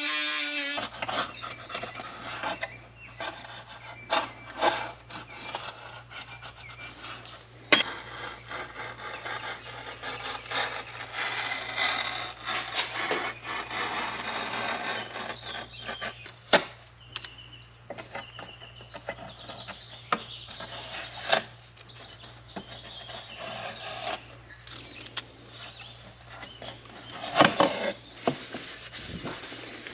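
Hand work on small car parts: irregular rubbing and scraping with scattered sharp clicks and knocks, over a faint steady low hum. Background music stops about a second in.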